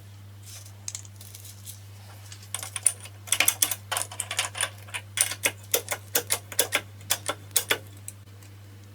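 A quick, irregular run of sharp light clicks and taps, two or three a second, starting a couple of seconds in and stopping shortly before the end, over a steady low hum.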